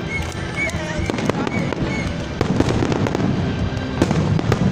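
Large aerial fireworks display: rapid sharp pops and bangs over a continuous low rumble of many shells bursting at once, getting a little louder about halfway through.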